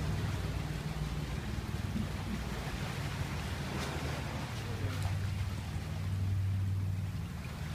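Small waves breaking on rocks and washing up over the sand in a rocky cove, a steady hiss over a low rumble that swells a little about two thirds of the way in.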